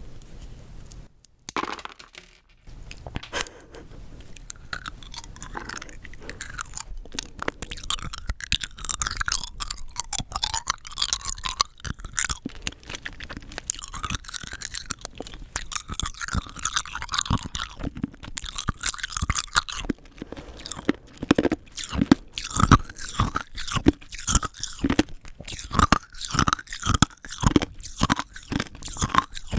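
Rock candy being bitten and crunched close to the microphone, a dense crackle of sugar crystals breaking. After a short lull about a second in it runs on continuously, turning into louder, separate chomps in the last third.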